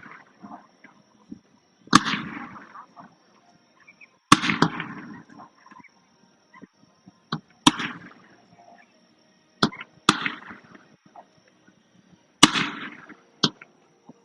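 Fireworks display shells bursting overhead: about seven sharp bangs, roughly one every two seconds, each followed by a fading rumble.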